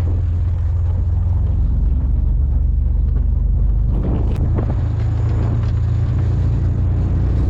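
Engine of a moving vehicle running steadily with a low rumble, with a few short knocks about four seconds in.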